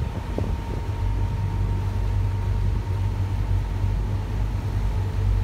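A river water taxi's engine running with a steady low drone, along with the rush of wind and water past the moving boat.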